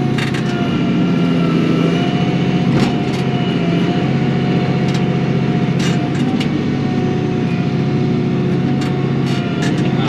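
Kioti NS6010 compact tractor's diesel engine running steadily under load while working soil with its loader bucket, with a steady whine over the engine and scattered short knocks.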